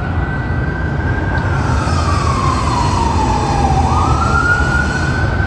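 Fire engine siren passing: one slow wail falling in pitch over about four seconds, then sweeping quickly back up, over a low traffic rumble.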